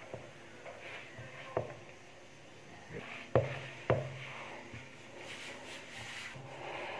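A hand kneading crumbly butter-and-flour sablé dough in a plastic bowl: soft squishing and rubbing, with three sharp knocks on the plastic bowl, one about a second and a half in and two close together about half a second apart a little later.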